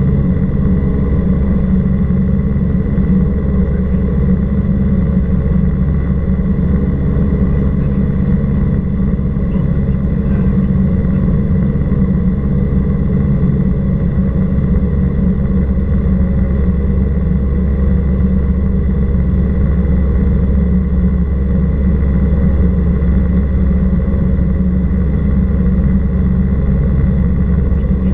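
A Cessna 172R Skyhawk's four-cylinder Lycoming piston engine and propeller droning steadily in cruise flight. The sound is loud and even throughout, heavy in the low end, with no change in power.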